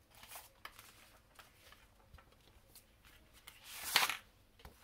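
Sheets of A4 Yupo paper being shuffled and slid over one another on a tabletop: soft rustling, with one louder swish about four seconds in.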